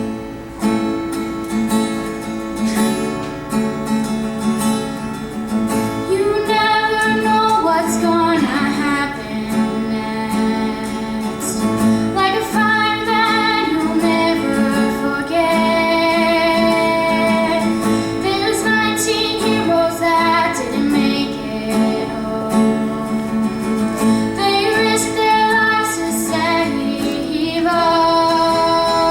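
A female voice singing a slow song over guitar accompaniment; the guitar plays alone for the first few seconds, the voice comes in about six seconds in, with vibrato on its held notes.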